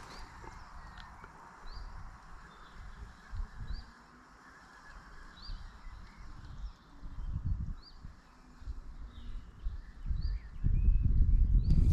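A small bird calling, a short high rising note repeated about once a second. Underneath, an irregular low rumble that grows loudest near the end.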